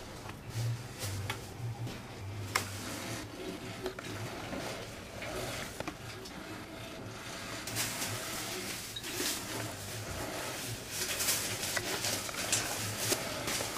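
Small motor of a battery-powered spinning cat-teaser toy whirring steadily as its wand sweeps a string around the floor. Kittens' paws click and scuff on the vinyl floor around it, busier in the second half.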